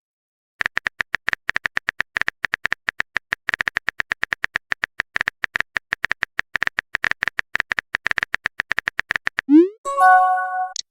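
Rapid clicks of a phone keyboard typing sound, about nine a second, then near the end a short rising bloop and a chime: a chat message being sent or arriving.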